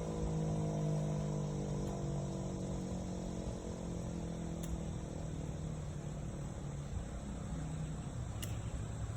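Federal Signal 2001-SRNB electromechanical warning siren winding down after its test. Its tone falls slowly and fades away by near the end.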